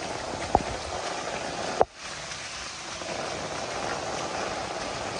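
Heavy rain pouring steadily on a water-covered lane and the surroundings, with two sharp knocks, about half a second in and just before two seconds, the second followed by a momentary dip in the rain sound.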